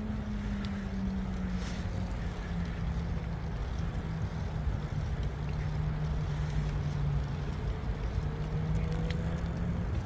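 Wind rushing over the microphone of a moving bicycle on a paved path, with a steady low hum underneath that slowly drops in pitch.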